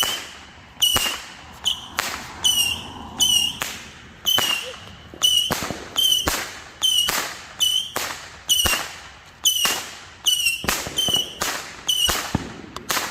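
A multi-shot consumer firework going off in a steady string, a sharp bang roughly every three-quarters of a second, each with a short high whistle; the string stops near the end.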